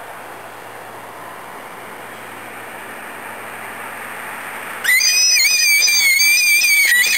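A child's high-pitched squeal, wavering and held for about two seconds, starting suddenly near the end. Before it there is only a faint hiss that grows slowly louder.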